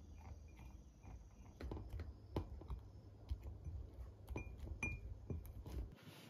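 Chopsticks stirring sliced bitter melon in a small frosted glass bowl, tapping and clinking against the glass in irregular clicks, several with a short bright ring.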